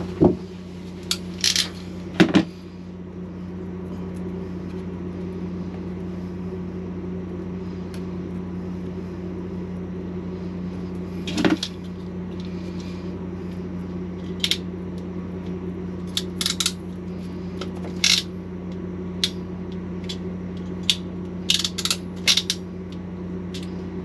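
Sharp metal clicks and clacks from a hand crimping tool pressing a crimp terminal onto the negative wire of a 12-volt cable, scattered singly and then in a quicker cluster near the end. A steady low hum runs underneath.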